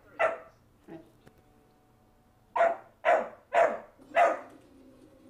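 A dog barking: one bark near the start, then a run of four sharp barks about half a second apart in the second half.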